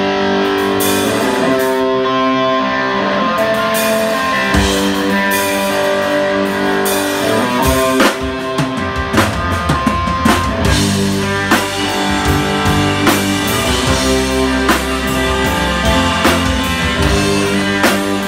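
Live rock band playing an instrumental intro on saxophone, electric guitars, bass guitar and drum kit. Held chords and notes carry the opening, and the drums and bass come in fully about eight seconds in with a steady beat.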